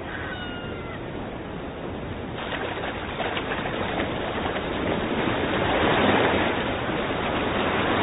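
Surf breaking on a beach, starting about two seconds in and swelling louder. In the first second, a few brief high cries from a sooty albatross, gliding down and up in pitch.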